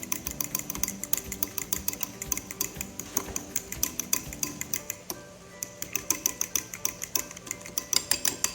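A spoon clicking quickly and steadily against a bowl while stirring a mayonnaise, mustard and chili sauce, pausing briefly about halfway through.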